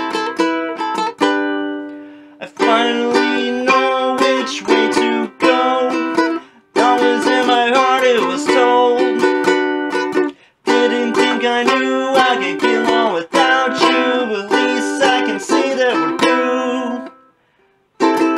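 Ukulele playing chords in an instrumental passage. It breaks off briefly about seven and ten and a half seconds in, and falls silent for a moment near the end before starting again.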